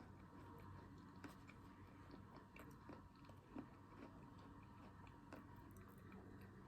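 Faint chewing of frozen chocolate-covered fruit: soft, scattered mouth clicks and small crunches, one slightly louder about three and a half seconds in.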